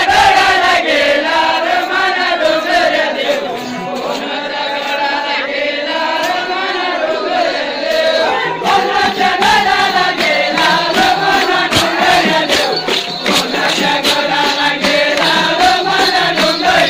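A group of men chanting together in a wavering unison, with sharp percussive beats joining more densely from about halfway through.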